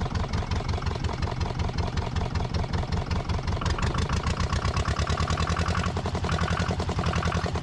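Volvo MD2B two-cylinder diesel running at idle in a rapid, even chugging beat, on a test run with its fuel gravity-fed from a can. The sound takes on a harsher edge about three and a half seconds in.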